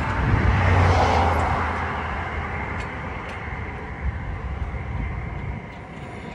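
A vehicle passing by on the road: a rumble and hiss of tyres that swells to its loudest about a second in, then fades away over several seconds.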